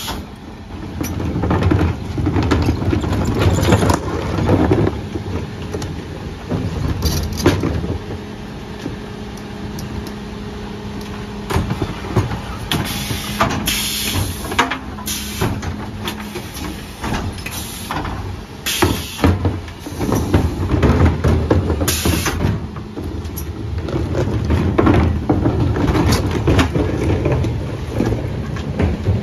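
Mercedes Econic refuse truck with a Faun Variopress body at work: the engine runs with a steady hum for several seconds mid-way. Over it come repeated knocks and clattering of wheelie bins on the Zoeller lifters, and a few short hisses.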